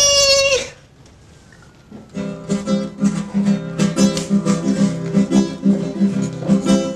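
Acoustic guitar strummed in a steady, even rhythm, starting about two seconds in after a short pause.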